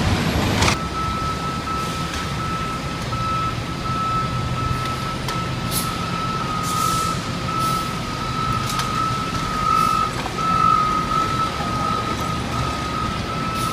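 A heavy diesel machine's backup alarm sounding as a steady high tone from about a second in, over the low rumble of its engine, with a few short sharp hisses or clanks.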